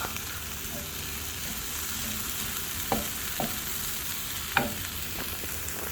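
Chopped onion, capsicum and tomato sizzling in butter in a pan as they are stirred, with a few light knocks of the stirring utensil against the pan near the middle.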